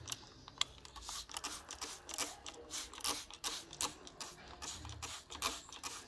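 Small handheld spray bottle spraying homemade insecticide onto leaves at close range: irregular trigger clicks and short spritzes, with leaves rustling under the hand.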